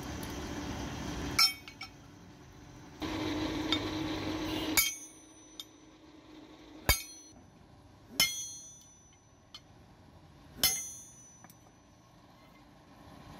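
Separate ringing metal clinks at a blacksmith's anvil, about six of them spaced a second or two apart, each dying away quickly: hammer and steel striking on the anvil. A steady hum runs under the first few seconds and stops abruptly.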